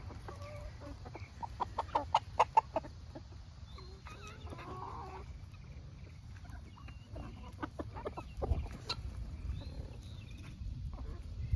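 Chickens clucking softly as they peck at napa cabbage leaves. Quick sharp pecking taps come in clusters, about two seconds in and again later, with short pitched clucks in between.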